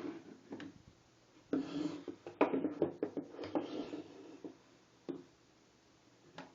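Compact 9mm pistols being set down and shifted on a hard surface: a run of irregular knocks and short scrapes, densest and loudest around the middle.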